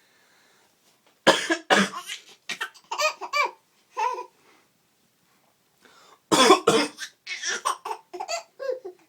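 A man coughs twice in quick succession, and a five-month-old baby answers with short bursts of giggling laughter; about six seconds in he coughs twice more and the baby laughs again.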